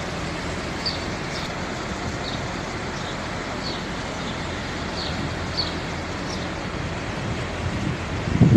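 Steady outdoor traffic noise from queued cars and lorries, with wind on the microphone and faint short high chirps every half second or so. A louder low buffet of wind on the microphone starts right at the end.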